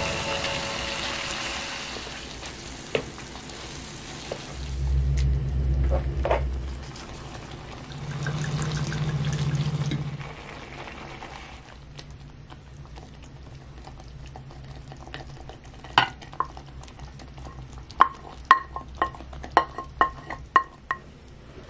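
Tomatoes sizzling and being stirred with a wooden spoon in a frying pan, with two stretches of liquid being poured in. Near the end come a run of sharp knocks and ringing clinks as a wooden spoon scrapes meatballs off a ceramic plate into the pan.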